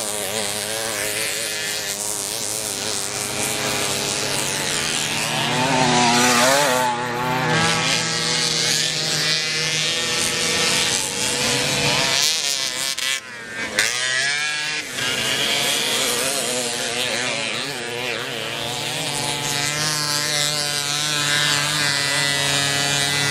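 Vintage two-stroke moped engines racing, more than one running at once, their buzzing pitch rising and falling as the riders rev through the course. The sound briefly drops away just past halfway, then picks up again.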